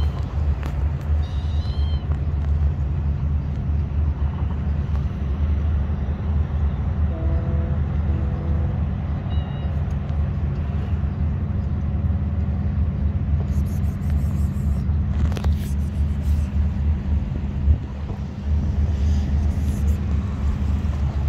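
A steady, loud low rumble with an even drone to it, with a few faint short high calls and a sharp knock about fifteen seconds in.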